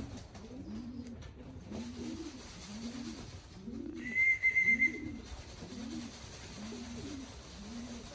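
Racing pigeons cooing, about one low rising-and-falling coo a second. About halfway through, a brief high warbling whistle lasting about a second is the loudest sound.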